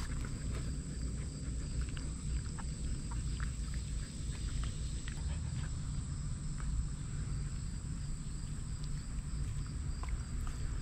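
Siberian husky chewing juicy watermelon flesh close to the microphone: many short wet crunches and clicks, over a constant low rumble and a steady high-pitched whine.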